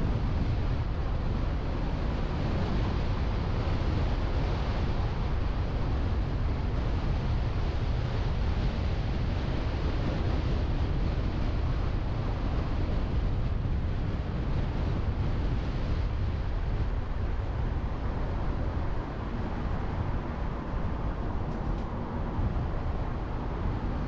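Wind buffeting the microphone of a car-mounted action camera while driving: a steady rushing noise, heaviest in the low end, over the car's road noise.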